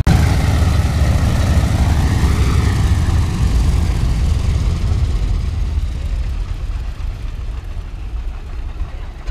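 Piston engines of a WWII warbird running nearby, a deep, steady rumble that gets gradually quieter through the second half.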